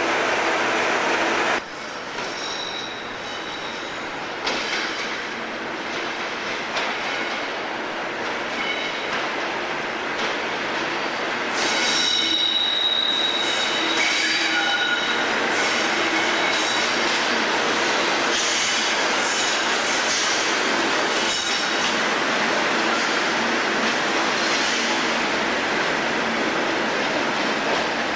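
Class 37 diesel locomotive moving slowly through the station, its engine running, with thin high-pitched wheel squeal from the wheels, loudest in the second half.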